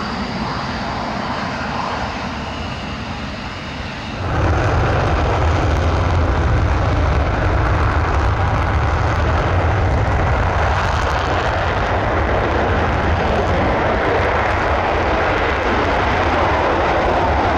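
Panavia Tornado IDS jets' twin RB199 turbofan engines running at high power on the runway. About four seconds in, the sound jumps suddenly louder and deeper and then holds steady as a Tornado makes its afterburner takeoff roll.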